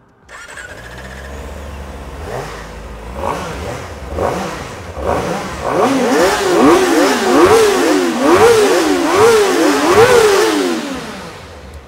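Two Kawasaki inline-four sport bikes, a Ninja ZX-25RR and a ZX-4RR, idling and then revved in repeated throttle blips. The blips come faster and overlap from about six seconds in, each a high-pitched four-cylinder rise and fall, and die away near the end.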